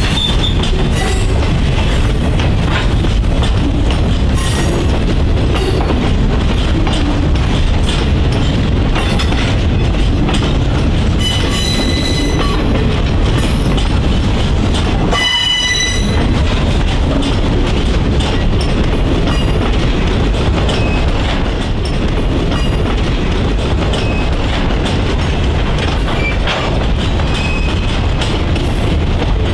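Freight train rolling along the rails, its cars clattering steadily with wheels clicking over the track. A brief high-pitched squeal rings out about twelve seconds in and again about three seconds later.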